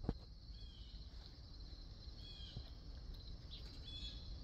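Faint outdoor background: a steady high insect-like hiss with three short, slightly falling high chirps about a second and a half apart. A couple of knocks right at the start.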